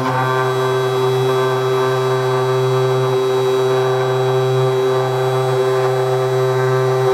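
TwoTrees TTC 450 CNC router running a test cut in plywood: a steady, loud machine whine from the spindle motor, holding one pitch throughout. It is "a bit noisy".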